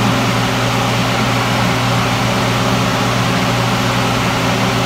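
Steady whirring hum of a motor-driven fan with a low drone, unchanging throughout, with a wooden spoon stirring taro leaves in coconut cream in a steel pan beneath it.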